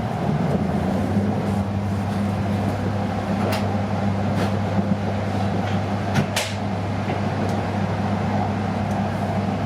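Cabin noise of an E5 series Shinkansen train running: a steady rumble with a low, even hum, and a few short clicks, the loudest about six seconds in.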